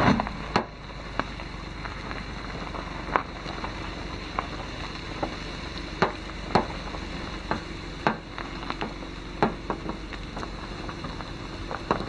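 Car tyres rolling slowly over a dirt track littered with dry leaves, bark and twigs: a steady crunching with irregular sharp cracks and snaps.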